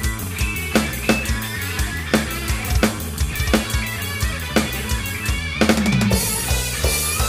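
A drum kit with acoustic drums and electronic pads played to a steady beat over a backing song with bass and guitar. About six seconds in comes a quick fill around the toms that ends in a crash cymbal.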